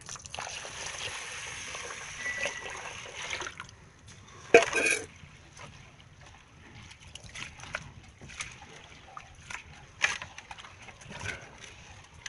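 Water poured from a steel pot onto raw rice in a steel bowl, a steady pour lasting about three and a half seconds. Then a hand swirls and rubs the rice in the water, making scattered sloshes and splashes, with one louder sharp sound about four and a half seconds in.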